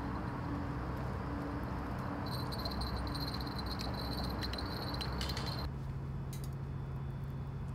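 Steady low hum of distant highway traffic, with insects chirping in a rapid, high-pitched pulsing trill. Near the end the chirping and hiss drop out abruptly, leaving only the low hum.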